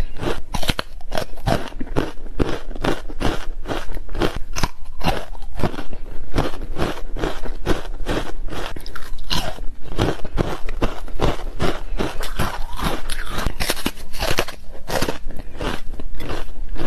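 Ice coated in green powder being bitten and chewed close to the microphone: a continuous run of crisp crunches, several a second.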